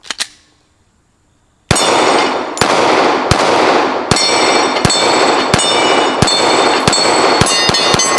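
Glock 19 9mm pistol fired in a steady string: about eleven shots, one every three-quarters of a second, the last three coming faster, starting a second and a half in. Steel targets ring between the shots.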